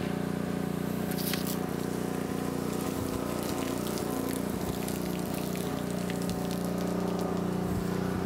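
Pressure washer's engine running steadily, with water from the air tank's open drain valve splashing onto concrete.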